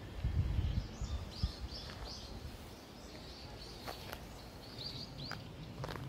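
Small forest birds chirping in the canopy, short repeated high calls coming again and again. Low buffeting on the microphone in the first second and a half, and a few soft clicks.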